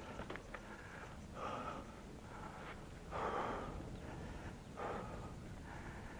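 A mountain biker breathing hard while pedalling, with about five heavy exhales, the loudest about three seconds in, over a steady low rumble of tyres on the dirt trail. A few light rattling clicks come near the start.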